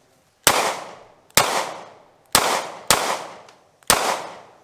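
Five shots from a 9mm semi-automatic pistol fired at an uneven pace, each crack trailing off in a short echo.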